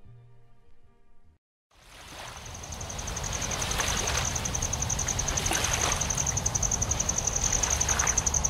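Background music ends about a second in; after a brief silence, wind and road noise from riding a bicycle rise and hold steady, with a high-pitched tone pulsing rapidly and evenly over it.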